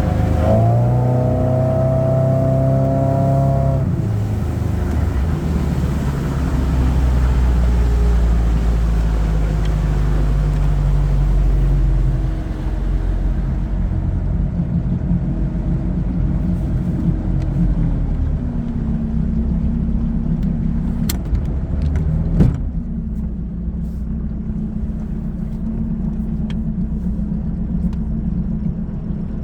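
A 1991 Sea Ray's four-cylinder boat engine running under way. It rises in pitch at first and runs steadily, then eases back to a lower, steady speed past the middle. A single sharp knock comes a little after that.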